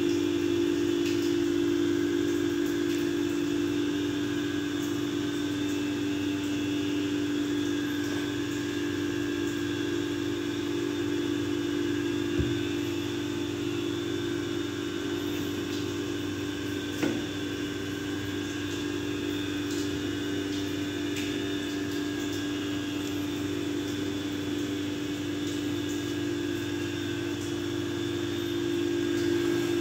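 Steady hum from a running motor or fan, unchanging throughout, with two small knocks about twelve and seventeen seconds in.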